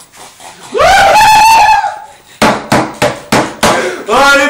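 A high-pitched shriek held for about a second, then a quick run of about eight hand claps, some five a second, with a voice starting up near the end.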